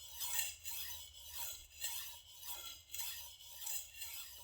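A gyuto kitchen knife stroked back and forth across a 250-grit EZE-Lap diamond sharpening stone, a rhythmic scraping rasp of about two strokes a second.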